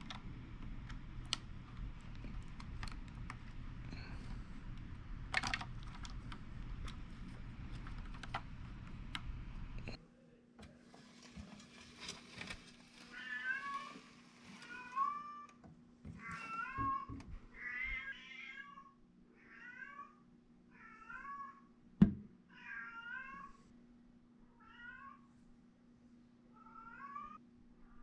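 LEGO pieces being handled and pressed together, light plastic clicks over a steady hum. After a break, a cat meows repeatedly, about a dozen short rising-and-falling meows roughly a second apart, with one sharp knock a little past the middle.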